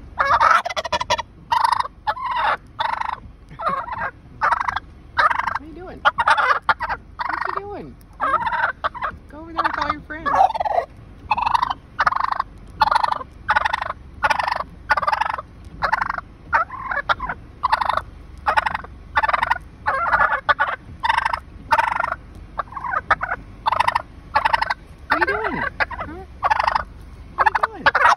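Male wild turkey gobbling over and over close by, short calls following each other about one and a half a second without a break.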